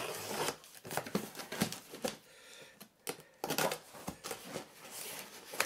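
Packing tape being slit and torn on a cardboard box and the flaps pulled open: irregular bursts of scraping, tearing and cardboard rustling, loudest about a second and a half and three and a half seconds in.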